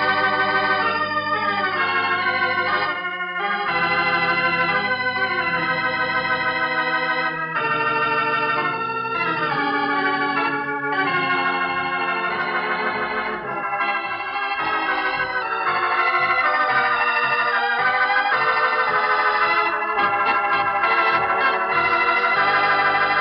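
Organ playing the closing theme music of an old-time radio drama: sustained full chords that change every second or two, with a moving melody line on top.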